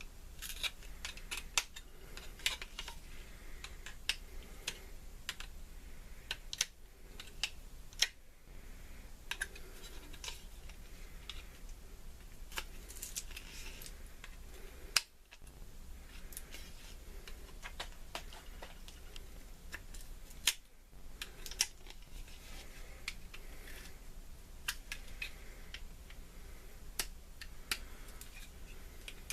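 Irregular light clicks and taps, with a few brief scratchy patches, over a steady low hum.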